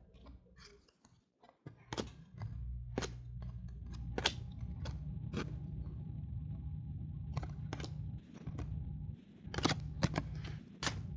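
A stack of football trading cards being handled and flipped through by hand, giving irregular sharp snaps and clicks about once a second, with a quick cluster near the end. A low steady hum sits underneath from about two seconds in.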